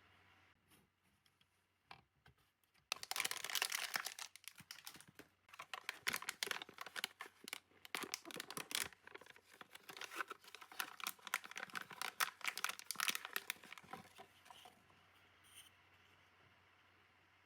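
Packaging being torn open and crinkled by hand: a dense run of rustling and crackling that starts about three seconds in and dies away about fifteen seconds in.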